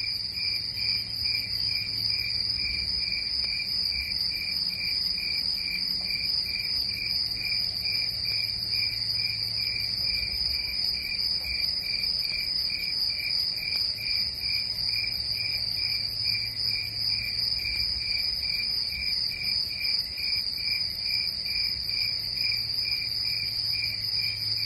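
Crickets chirping, a steady high trill with a regular pulse about twice a second. It starts and stops abruptly with the clip, as a crickets sound effect does.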